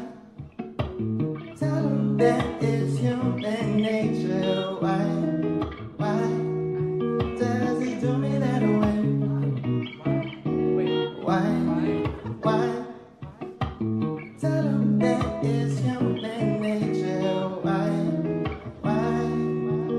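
Acoustic guitar playing chords, a mix of strummed and plucked notes, with a short break about thirteen seconds in.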